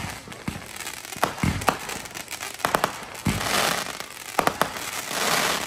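Fireworks going off: a rapid string of sharp bangs, with two spells of crackling, one about three and a half seconds in and another near the end.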